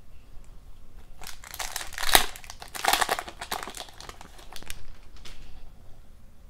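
Foil wrapper of a 2022-23 SP Authentic hockey card pack being torn open and crinkled by hand, with one sharp rip about two seconds in, followed by a burst of crinkling.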